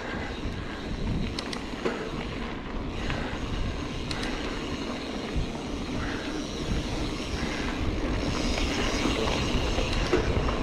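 Hardtail mountain bike rolling over a rough dirt trail: steady rumble of tyres and rattling of the bike, with a few sharp clicks and wind on the camera microphone.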